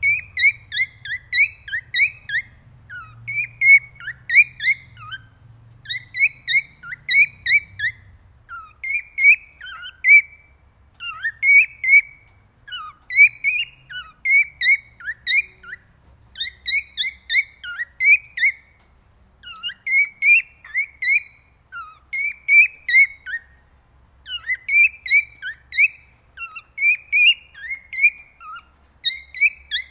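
Male cockatiel singing its courtship song: quick groups of three to five clear whistled notes, phrase after phrase, with short pauses between.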